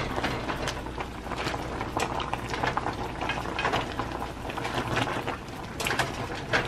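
Goat meat and chicken bubbling in a metal pot of broth while a wooden spoon stirs them, with many small knocks and scrapes against the pot.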